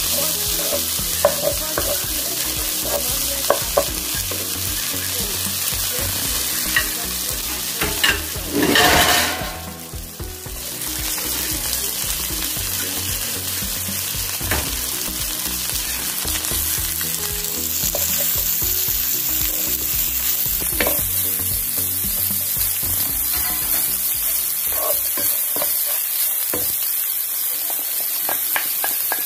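Peas, onion and shredded ham sizzling in a frying pan, stirred with a wooden spatula that scrapes and clicks against the pan. A louder rush of noise comes about eight seconds in, and then the sizzle briefly dies down.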